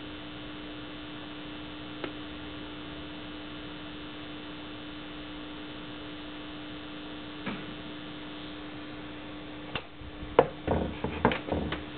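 Circuit-bent PC Junior learning toy holding a steady, low electronic hum, a single stuck tone with faint overtones. Near the end come several sharp clicks and knocks as a hand takes hold of the toy.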